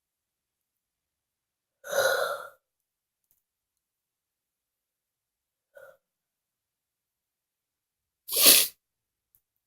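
A person sneezing loudly twice, about six seconds apart, with the second sneeze the louder and shorter. A faint short sound comes between the two sneezes.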